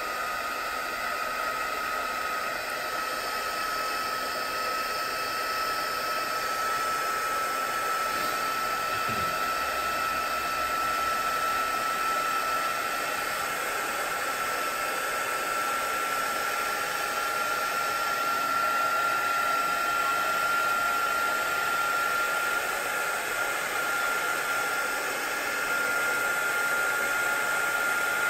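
Handheld craft heat tool running steadily, blowing hot air to dry wet watercolour paint, with a steady whine that creeps slowly higher in pitch.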